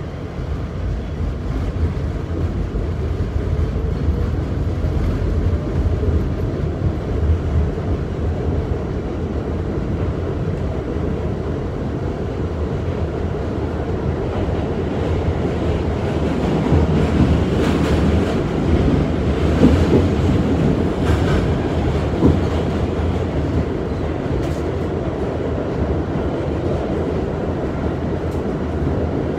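New York City subway car running, heard from inside: a steady rumble of wheels on the track. A faint rising whine comes in the first few seconds, and louder rattling and clattering about two-thirds of the way through.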